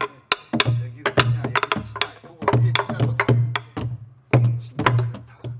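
Sori-buk, the Korean pansori barrel drum, played in quick practice patterns: sharp wooden clacks of the stick on the drum's shell mixed with low, deep strokes on the drumhead, about two low strokes a second, with a short break a little after four seconds.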